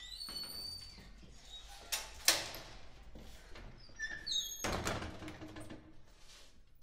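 Wooden casement window worked open by its brass handle: squeaks, two sharp latch clicks about two seconds in, then a louder rattle and rush as the sash swings open about five seconds in.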